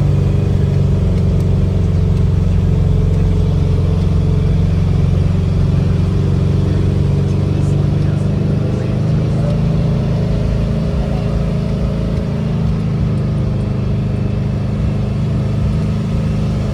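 Engine of an antique Volkswagen running steadily while the vehicle drives along, heard from aboard, with a strong, steady low hum.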